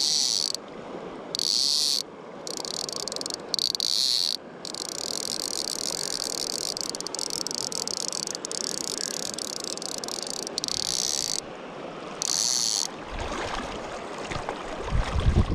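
Fly reel's click-and-pawl drag buzzing in a series of abrupt runs, one of them about seven seconds long, as a hooked trout pulls line off the reel. Near the end, wind rumble on the microphone and moving river water.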